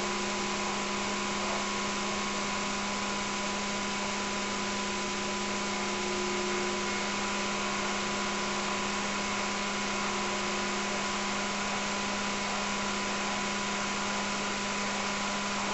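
Steady hiss with a constant low hum and a few faint steady whines, unchanging throughout.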